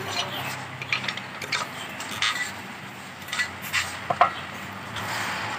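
Socket wrench turning and tightening the connecting-rod cap bolts on a Maruti Suzuki Eeco engine's crankshaft: irregular metallic clicks and clinks of the tool on the bolts, with a short ringing clink about four seconds in.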